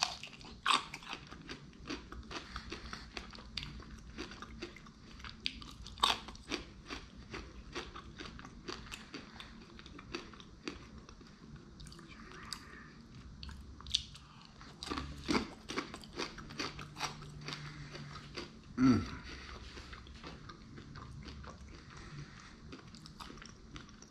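A person biting and chewing crunchy sushi, with repeated crisp crunches and wet mouth clicks. A brief low, falling hum comes about three quarters of the way through.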